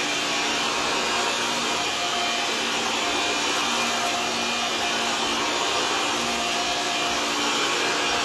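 Shark Lift-Away upright vacuum running steadily, with an even motor whine and a faint hum, while it is pushed over carpet.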